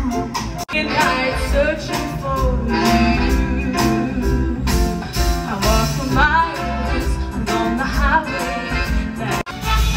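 Upbeat music with singing over a steady beat, cutting out for an instant twice.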